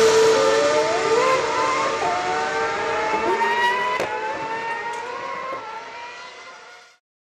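Racing car engines running at high revs, their pitch wavering and slowly rising. The sound fades steadily and cuts off shortly before the end.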